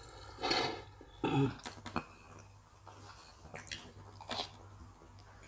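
Fast eating with wooden spoons: chewing, a short cough-like burst a little over a second in, and a few light clicks of spoon against plate.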